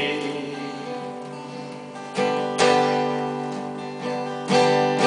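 Steel-string acoustic guitar strumming chords that ring and fade, struck twice in quick succession about two seconds in and again near the end.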